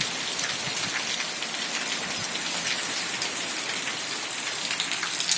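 Heavy rain pouring down steadily, a dense hiss of drops with many small patters of drops striking surfaces.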